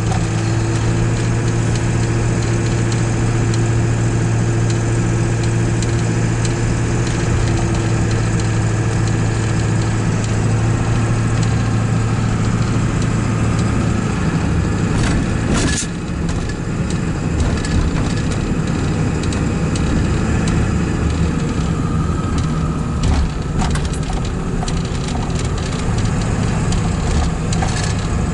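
Steady engine and road noise heard inside a moving vehicle's cab at highway speed, with a low drone that fades out a little under halfway through. A few brief knocks stand out later on.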